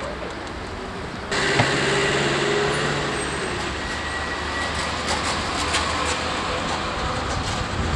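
City street traffic noise with a vehicle's engine hum in it. It jumps abruptly louder about a second in, at a cut in the recording.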